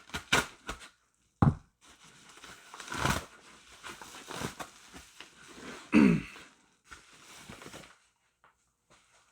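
A mailing envelope being torn open and its packaging rustled and crinkled, with a few sharp clicks near the start and a louder burst about six seconds in.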